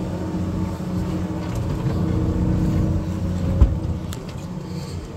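Steady low hum of a fishing boat's engine running, with a single sharp knock about three and a half seconds in.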